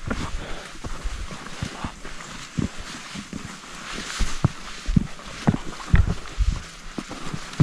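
Footsteps of a hiker on a mountain trail: irregular dull thumps, one or two a second.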